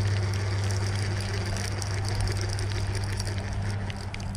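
River current running: a steady rushing of water, with a steady low hum beneath it.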